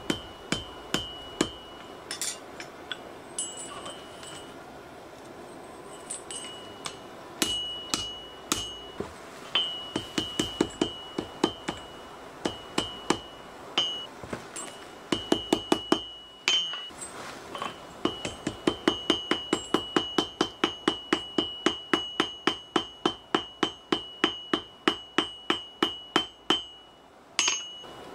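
Hand hammer striking a red-hot steel chain link held in tongs on an anvil, in runs of quick blows with short pauses, the anvil ringing with a high tone through each run. The longest and fastest run, about four to five blows a second, comes in the second half.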